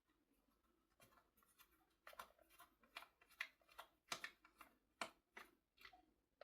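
Small hand screwdriver turning a screw out of a Dyson V7 vacuum's plastic body: faint, irregular clicks and scrapes, a few a second, as the bit works and the hand regrips.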